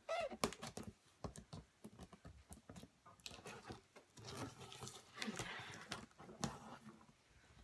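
Scissors slicing along the packing tape of a cardboard box, a rough scraping rip in the second half, after scattered light taps and rustles of hands on the cardboard.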